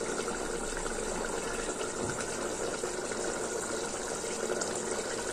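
Steady rushing hiss of a gas stove burner at medium flame under a covered aluminium pot of simmering curry.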